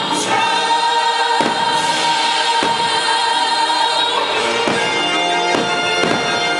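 Choir singing held notes over orchestral music, with a few dull thumps mixed in.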